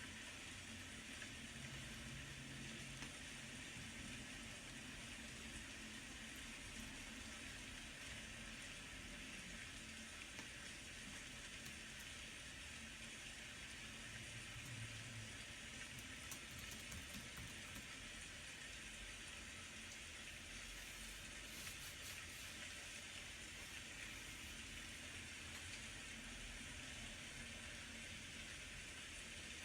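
Steady rain, a faint even hiss that does not change.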